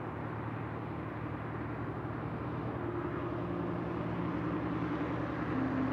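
A steady low rumble, with soft held ambient-music notes fading in about halfway through and building toward the end.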